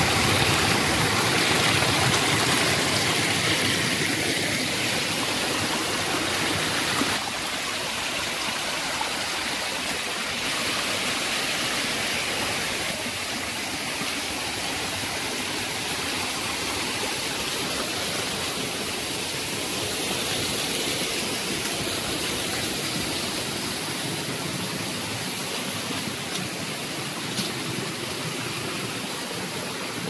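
Shallow rocky stream running over boulders: a steady rushing of water, a little louder for about the first seven seconds.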